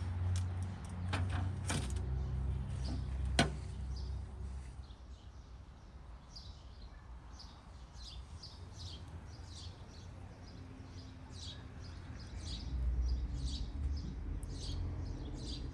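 A baking pan going into a countertop electric oven, with a few metal clicks and a sharp clack about three and a half seconds in. After that, small birds chirp over and over in short high notes.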